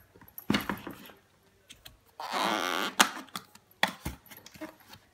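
A white cardboard box being ripped open by hand: a short tearing rasp of the seal about two seconds in, ending in a sharp snap, with clicks and taps of the cardboard flaps before and after.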